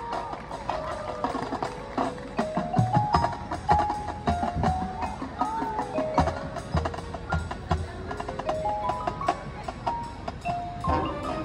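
Marching band front ensemble playing a quiet melodic passage on mallet percussion such as marimba and glockenspiel, the notes stepping upward in short runs over light percussive clicks. The texture thickens near the end as more of the band comes in.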